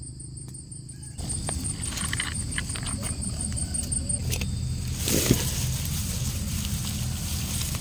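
Insects chirping in fast, even pulses with a steady high trill beneath, under a low rumbling noise that comes up about a second in; the pulsing stops about four seconds in. About five seconds in there is a short sharp rustle or knock.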